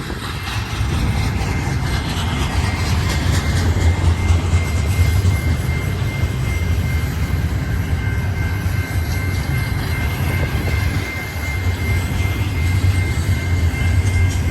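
BNSF intermodal freight train's cars rolling past at speed: a heavy, steady low rumble with a thin, steady high-pitched tone running over it.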